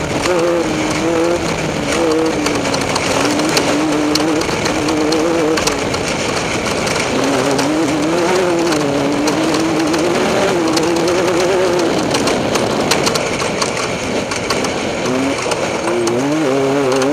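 Off-road race vehicle's engine running under load, its pitch rising and falling repeatedly with the throttle over a constant rush of wind and terrain noise. Scattered rattles and knocks come through as it runs over rough ground.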